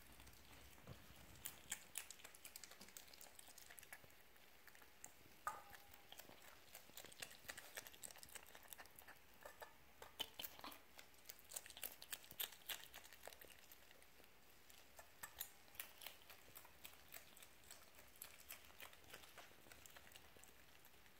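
Fennec fox chewing and crunching superworms and carrot slices from a stainless-steel bowl: faint, irregular small clicks and crunches.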